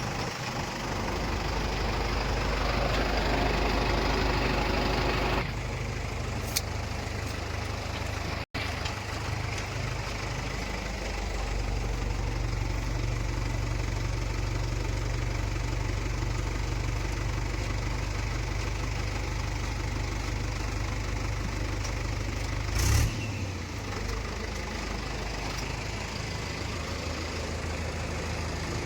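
Heavy-machinery diesel engine running steadily at a low hum. There is a short louder burst about 23 seconds in.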